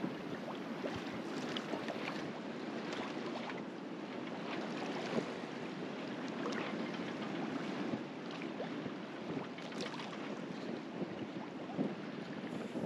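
Water washing and splashing along the hull of a sailboat under way, a steady rush with small splashes here and there, and wind on the microphone.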